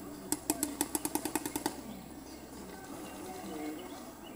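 Paintball marker firing a rapid string of about fourteen shots, roughly ten a second, beginning a moment in and lasting about a second and a half.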